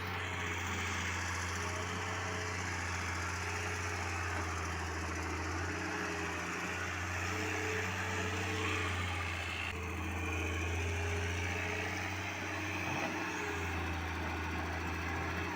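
Heavy construction machinery's diesel engine running steadily, with a low engine hum and a mechanical hiss over it.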